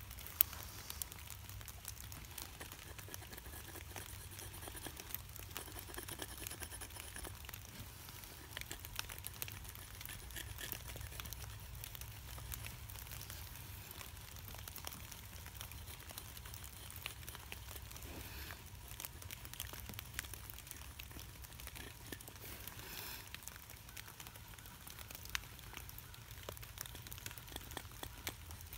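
Faint, scattered patter of light rain, irregular small ticks throughout, with soft scratching of a pencil drawing on raw maple wood and a steady low rumble underneath.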